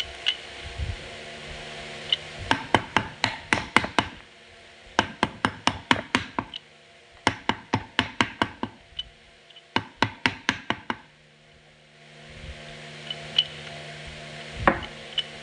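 Four quick runs of sharp metal knocks, about six a second, then one louder single knock near the end, from a forklift transmission clutch drum being worked down over its gear so the clutch plates seat one by one.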